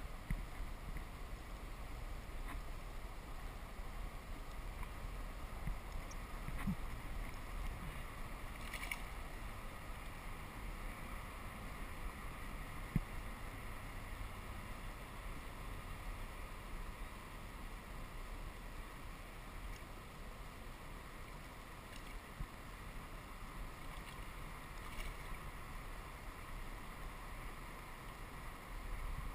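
Steady wash of river water around a kayak hull, with a few brief small knocks.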